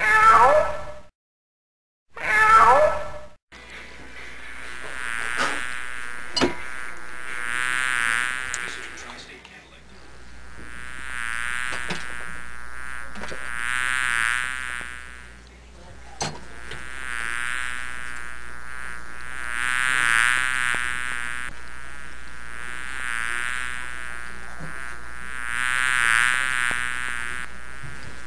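A housefly buzzing steadily, getting louder and softer about every six seconds as it circles, with a few faint clicks. Two short, loud, rising cries come first.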